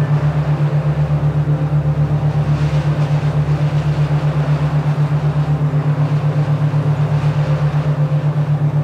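A synthesized binaural-beat meditation drone: a low hum pulses at an even rate several times a second, with soft sustained higher tones above it.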